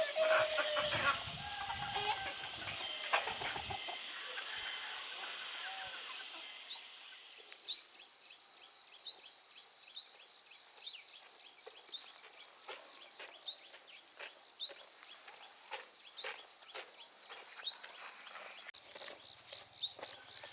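A bird calling over and over, a short upward-sweeping chirp about once a second, over a steady high-pitched drone like insects. The first few seconds hold mixed rustling and clatter before the calls begin.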